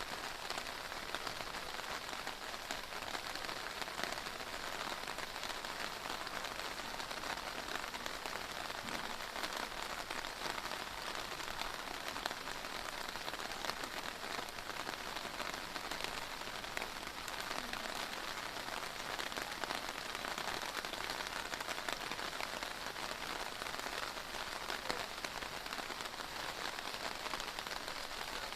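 Heavy rain pouring down steadily, a dense patter of drops striking surfaces.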